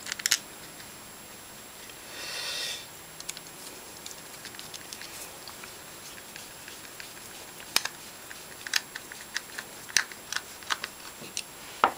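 Small metal clicks and taps of screws and a screwdriver on a motorcycle vacuum-operated fuel tap as its diaphragm cover is screwed back together, most of them in the second half. A brief soft hiss about two seconds in.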